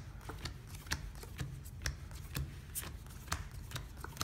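Playing cards being dealt one at a time from the deck onto a felt table: a string of short, sharp clicks, about two a second.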